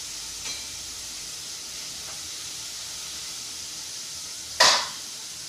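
Chicken breast strips frying in hot oil, a steady sizzle. About four and a half seconds in, a short, loud hiss flares up as a piece is moved in the oil, then settles back.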